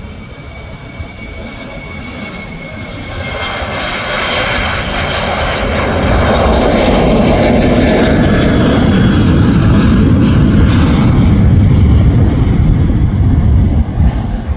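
Twin-engine jet airliner taking off at full thrust. The engine noise swells steadily, with a high whine in the first few seconds, and is loudest about two-thirds of the way through. A deep rumble takes over near the end as the plane climbs away.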